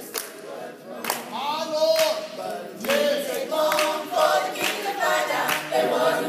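Small mixed gospel vocal group singing a gospel song together, with hand claps keeping the beat roughly once a second.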